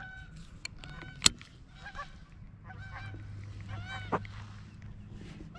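Geese honking, about five short calls in a row, with one sharp click about a second in.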